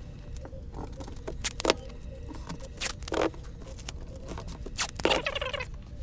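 Hands placing and adjusting a perspex sheet in a frame: scattered taps and clicks of plastic, and a longer scrape about five seconds in.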